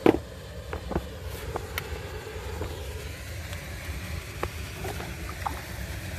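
Steady low wind rumble on a phone's microphone, with a sharp knock just after the start and a few small handling clicks as a small bass is held and let go over the side of an aluminium jon boat.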